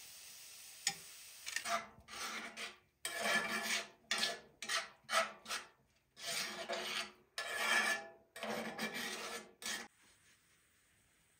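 Onions sizzling in fat in an aluminium frying pan, then a metal slotted skimmer stirring and scraping across the pan's bottom in a long series of rasping strokes. The strokes stop near the end.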